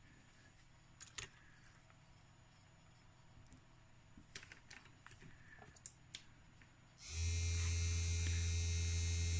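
A few faint clicks, then about seven seconds in the electric motor of a bit-sharpening grinding machine switches on and runs with a steady, loud low hum and a high hiss.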